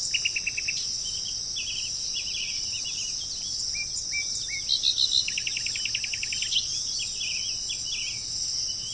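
Songbirds calling: short chirps and fast trills of rapidly repeated notes, with one long trill about five seconds in. Underneath is a continuous high-pitched insect buzz.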